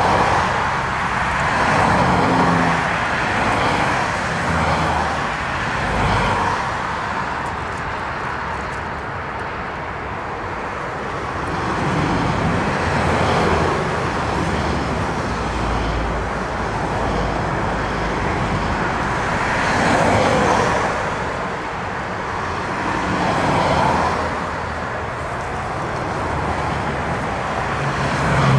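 Twin-engine jet airliner landing in storm winds and rolling out on the runway: a steady jet roar mixed with wind noise, swelling and easing every few seconds.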